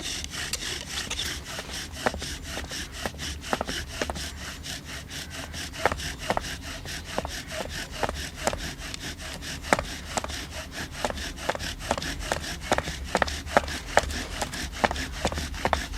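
Bow drill being worked for fire: a wooden spindle rubbing in the notched hearth board with steady, even back-and-forth bow strokes, building toward an ember.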